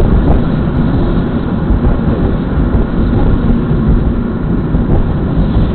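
Steady low rumble of a car driving on the road, engine and tyre noise picked up inside the cabin by a dashcam microphone.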